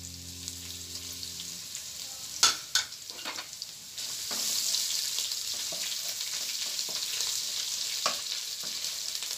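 Chopped onion sizzling in hot oil in a nonstick wok while a wooden spatula stirs it. Two sharp knocks come about two and a half seconds in, and the sizzle grows louder from about four seconds.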